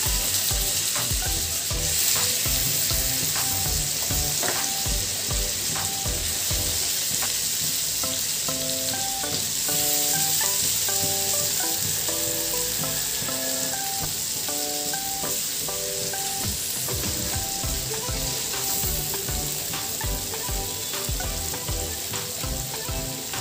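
Marinated chicken pieces sizzling steadily in hot oil and melted butter in a non-stick pan as they are laid in one by one. Soft background music with a simple melody and beat plays underneath.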